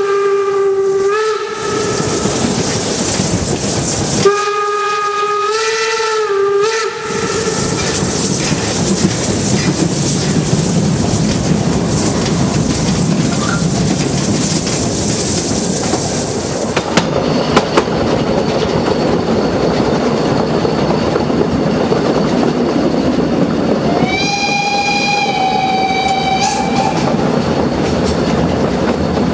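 Steam whistle of the Harz narrow-gauge 2-10-2 tank locomotive 99 7245-6: a low, multi-note blast that ends about a second in, then a second blast of about two and a half seconds whose pitch wavers near its end. After that comes a long stretch of steam hiss and the train running along the track. Near the end a different, higher-pitched steam whistle sounds for about three seconds.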